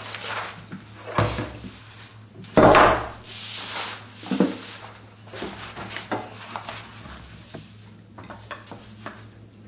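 Silicone release paper and a silk scroll being handled: paper rustling, with a dull knock about a second in and a louder knock and sweep of paper almost three seconds in, then smaller rustles and ticks.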